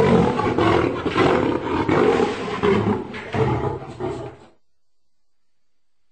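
Lion roaring: a run of loud, rough calls that swell and fade several times, stopping about four and a half seconds in.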